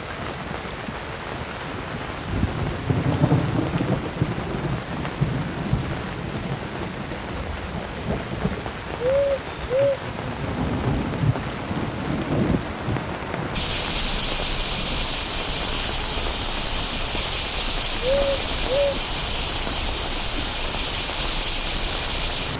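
A cricket chirps steadily, about three chirps a second, over low rumbling thunder in the first half. An owl hoots twice, and later twice again. A little past halfway, heavy rain comes in suddenly as a dense hiss.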